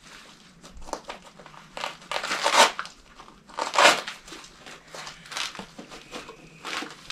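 Rustling and crinkling of a nylon plate carrier as a large Purell pump bottle and other small items are handled and pushed into its front pouches, with two louder scraping rustles about two and a half and four seconds in.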